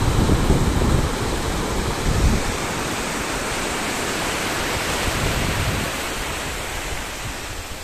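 Sea surf washing onto a sandy beach: a steady rushing hiss, with wind buffeting the phone's microphone in the first couple of seconds. The hiss eases off near the end.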